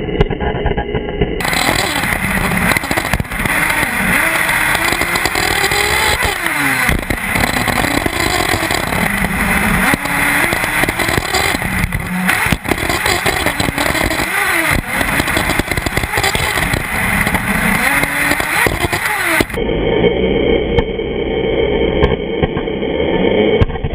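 Small nitro engine of a 1/8-scale Intech BR-5 RC buggy revving up and down, its pitch rising and falling again and again with the throttle, over wind and track noise. The sound turns duller and muffled for the first second or so and the last few seconds.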